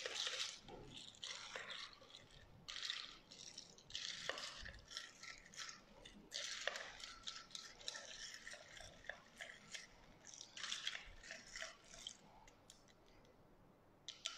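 A long spoon stirring an iced drink in a tall glass: ice rattling and clinking against the glass in irregular bouts.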